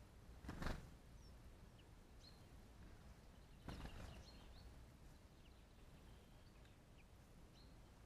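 Faint, scattered short calls of small songbirds, with two brief knocks, one just under a second in and one a little under four seconds in.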